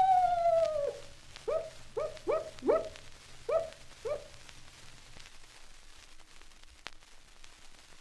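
Screech owl cries played from an old 78 rpm sound-effects record: a long falling whistle that ends about a second in, then six short falling calls in quick succession. After that, only faint record surface noise and hum with a single click.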